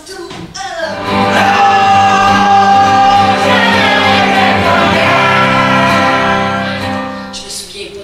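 A mixed group of men's and women's voices singing loudly together in long held notes. The singing swells up about a second in and dies away near the end.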